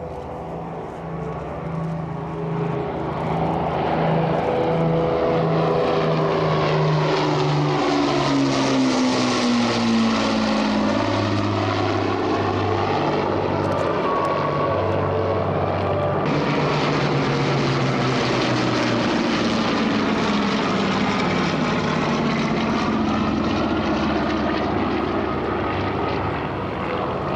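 Avro Lancaster's four Merlin V12 piston engines droning in a flypast, growing louder over the first few seconds and dropping in pitch as the bomber passes, about ten seconds in.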